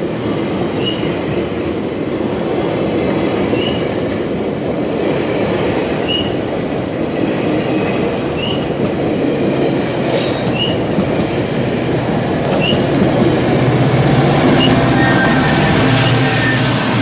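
GO Transit commuter train pulling out of the station, its bilevel coaches rolling past with a steady wheel-on-rail rumble and short, faint wheel squeals about every two seconds. A low steady diesel engine drone grows near the end as the locomotive at the rear comes up.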